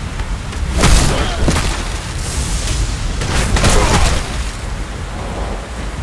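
Heavy rain falling, over a deep continuous rumble, with two sudden loud booms: one about a second in, the other around three and a half seconds.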